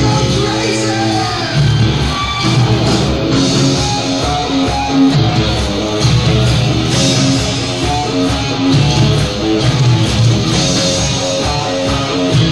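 Heavy metal band playing live: distorted electric guitar playing quick note runs over bass guitar and drums.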